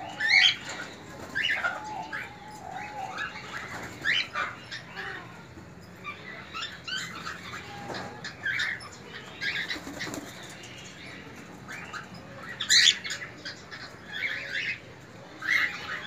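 A colony of cockatiels calling, many short chirps and whistled calls from several birds at irregular intervals, with wings fluttering now and then.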